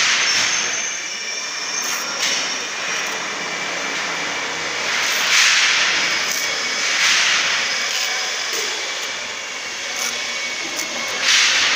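Newspaper masking being peeled and torn off a bus's painted side panel: a few loud rustling tears, each lasting under a second, over a steady workshop hum.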